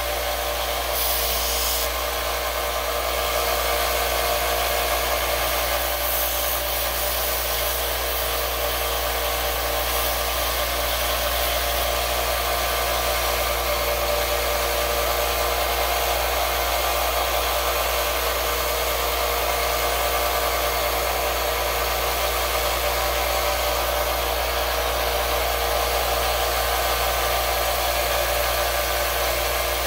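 Small bench belt sander running steadily, its motor and belt running continuously while a workpiece is held against the belt for sanding.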